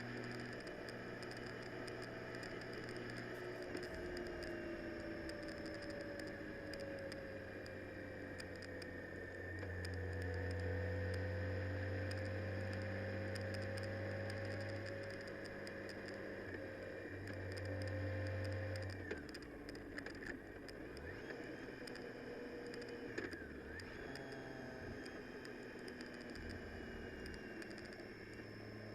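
Vehicle driving in the rain: steady engine and road noise whose pitch slowly rises and falls, with rain pattering and scattered small clicks, easing off somewhat after about 19 seconds.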